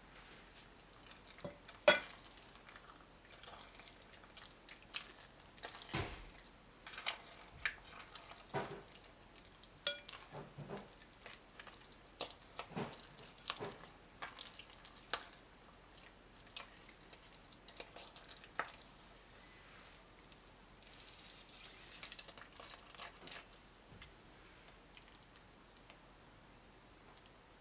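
Kitchen cooking sounds: irregular light clinks, taps and knocks of utensils against pots and dishes, with the sharpest knock about two seconds in.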